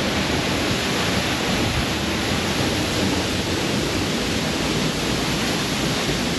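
Steady, even rush of falling water: a jungle waterfall together with heavy tropical rain.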